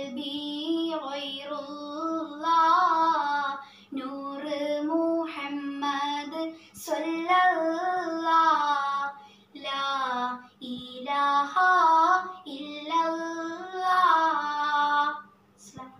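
A boy singing a Malayalam Islamic devotional song unaccompanied, in a high voice, in long wavering phrases with short breaks for breath between them.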